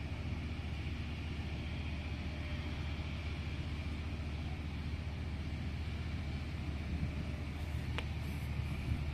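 Steady low mechanical rumble with an even hiss, from the moored offshore tug supply vessel's machinery running at the berth. A single sharp click about eight seconds in.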